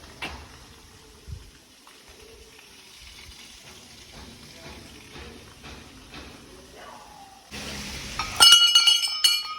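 A metal temple bell rung by hand, struck several times in quick succession from about a second before the end, each strike ringing on in several clear tones.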